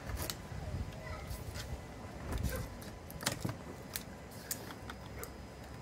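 Utility knife blade scoring and cutting through thin plywood along a routed outline, with irregular small clicks and scrapes. It is slicing the last skin of wood that the CNC bit, set a hair too high, left uncut.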